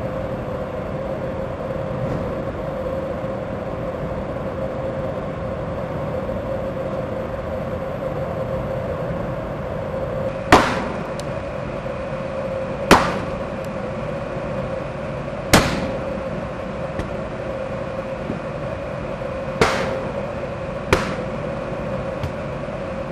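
Steady hum, then, starting about halfway through, five sharp bangs a few seconds apart, each ringing briefly; the first three are the loudest. These are a BMW's airbags being set off one after another to neutralize their pyrotechnic charges before the car is dismantled.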